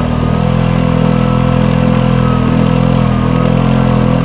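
CFMoto 500 quad's single-cylinder engine running steadily under throttle with a high whine over it, while the quad is stuck axle-deep in mud and its wheels churn without grip.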